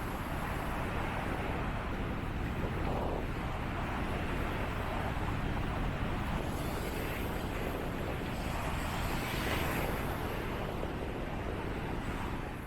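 Steady seaside ambience of wind and surf, with wind buffeting the microphone.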